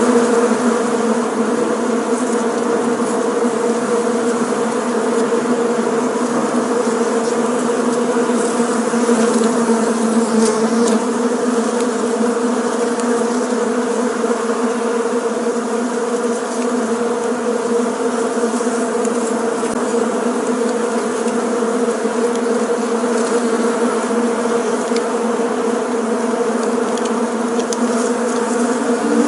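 Many bees buzzing together in a steady, dense drone.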